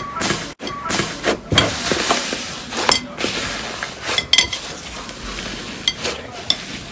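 Slime being squished and worked by hand, giving a dense run of small sticky clicks, crackles and pops.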